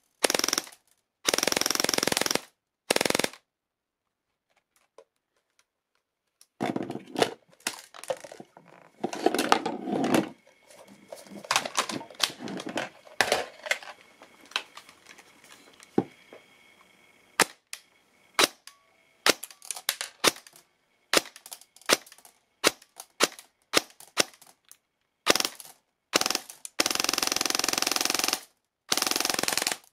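Electric airsoft gun firing 0.2 g BBs into a chronograph: full-auto bursts at about 21 rounds a second, a few seconds' pause, a long run of single and rapid shots, then two more full-auto bursts near the end.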